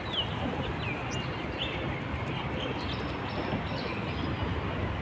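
Several short, high, falling bird chirps over a steady outdoor rumble.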